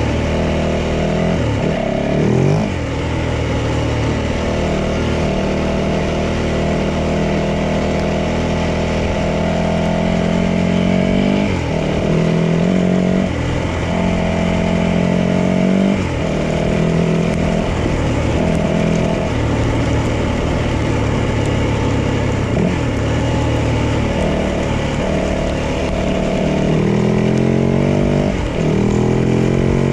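Yamaha 450 dirt bike's single-cylinder four-stroke engine running under way, its note dropping briefly and climbing again every few seconds as the ride goes on.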